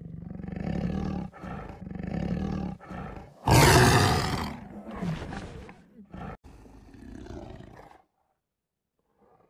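Tiger growling in three low, rough stretches, then one loud roar about three and a half seconds in lasting about a second. It tails off into softer growls that stop about two seconds before the end.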